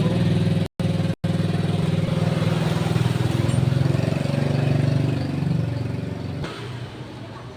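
A motor running with a steady low buzz for about six seconds, then dropping away, with two brief cut-outs near the start.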